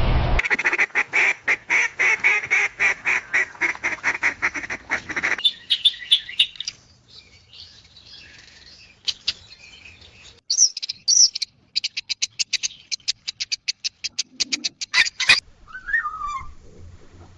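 A series of different bird calls cut one after another. First comes a rapid run of repeated calls, about four or five a second, for some five seconds. Scattered chirps follow, then another fast, even series of call notes, and near the end a short falling whistle.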